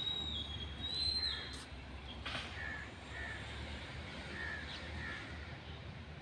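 Crows cawing in short repeated calls. A thin, high whistling tone that steps in pitch runs through the first second or so, and a single sharp click comes a little after two seconds in.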